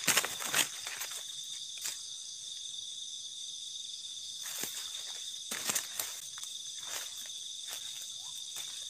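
Night chorus of crickets and other insects chirring steadily in several high-pitched layers, with scattered light crackles and rustles from the ground cover.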